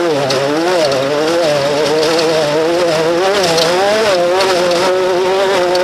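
Off-road race vehicle engine running hard, its pitch rising and falling repeatedly with the throttle, then holding steadier near the end.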